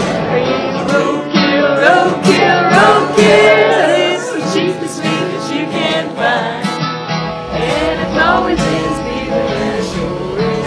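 Country song: a voice singing over guitar accompaniment.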